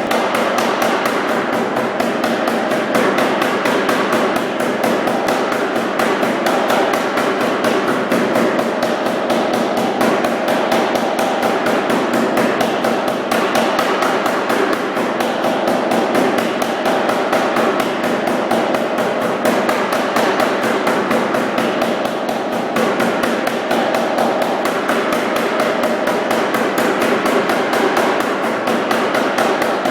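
Anyang 55 lb self-contained air power hammer running steadily, its flat dies striking a 2 by 2 inch bar of hot steel in a fast, even stream of blows.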